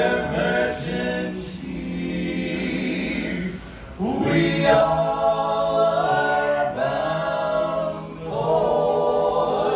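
Barbershop quartet of four men singing a cappella in close harmony, holding long chords. The singing dips briefly about four seconds in, then comes back in with the next phrase.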